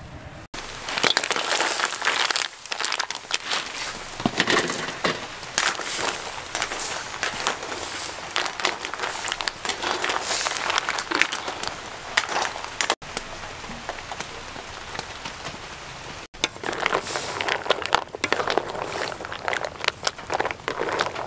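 Mussels cooking in a steaming wok: a dense crackling sizzle and bubbling, with shells clattering against the wok and against each other as they are stirred. The sound breaks off briefly at a few cuts.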